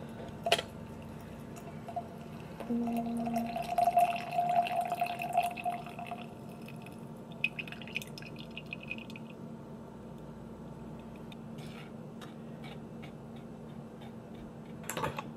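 Coffee poured from a stovetop moka pot into a glass mug, splashing and filling, loudest a few seconds in and then dying down to a faint trickle. A sharp clink about half a second in, and clinks at the end.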